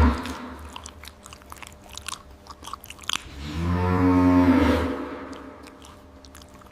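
A cow moos once, one long low call about three and a half seconds in. Before it, a sudden thump at the start and scattered crunching clicks of cattle chewing feed.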